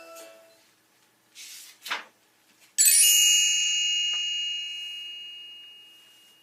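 Two short swishes, then a bright bell-like chime that strikes once and rings down slowly: the page-turn signal of a read-aloud storybook.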